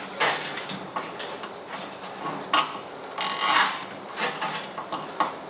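Hand-handling noises on a wooden and metal brooder cage: irregular taps, knocks and scraping or rubbing, with a few sharper clicks about two and a half seconds in and toward the end.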